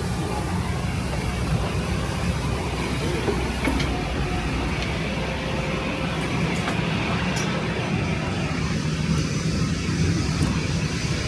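Airport transfer bus driving, a steady low engine and road rumble with occasional faint clicks and rattles.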